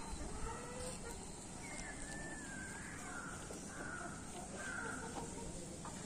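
Birds calling: one wavering call about two seconds in, then three shorter calls, over a steady low background.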